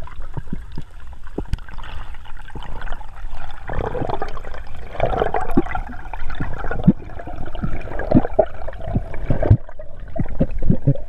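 Muffled water sound picked up underwater: water gurgling and rushing past the camera housing, with many small pops and knocks, busiest through the middle and thinning near the end.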